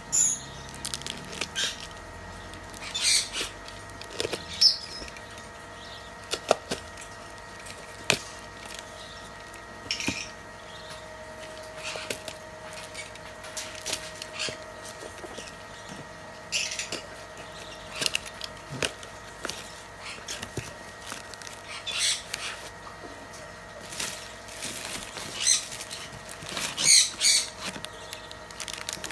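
Packaging being opened and handled by hand: irregular rustles, crinkles and small clicks, some sharp, scattered throughout, over a faint steady hum.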